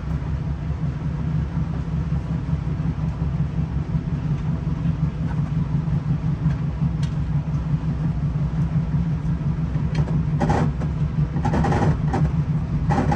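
Steady low rumble of a passenger train running, heard from on board, with a few short, louder sounds near the end.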